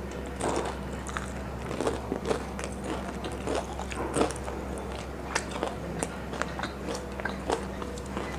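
Close-miked chewing and biting of crispy fried chicken, with irregular crisp crunches spaced a fraction of a second to a second apart.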